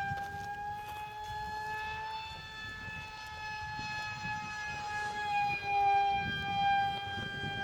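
Electric motor of a scratch-built high-speed RC plane whining at a steady high pitch, the tone wavering slightly and getting louder about two-thirds of the way in.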